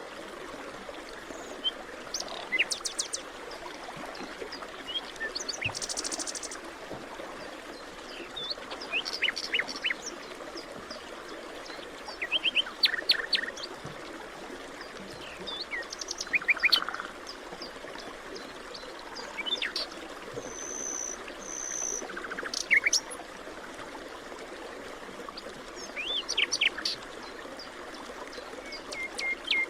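Forest birds chirping and calling in short bursts every few seconds, with several different calls including quick trills. They sound over a steady rushing background hiss.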